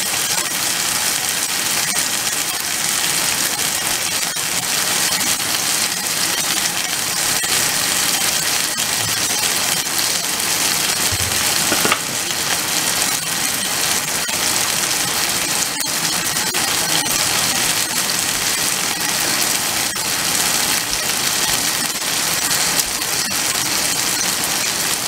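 Chicken breasts sizzling steadily in hot oil in a nonstick frying pan, with faint crackling and one small click about halfway through.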